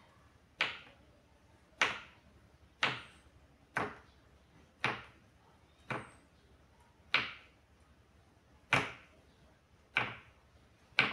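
A small kitchen knife chopping through tempeh and striking a wooden cutting board, with about ten sharp knocks spaced roughly a second apart as it is cut into small thin pieces.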